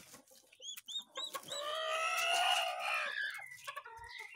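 Chicks peeping in short high chirps, a few about a second in and more near the end. In between comes a longer, steady call from an adult fowl, the loudest sound here.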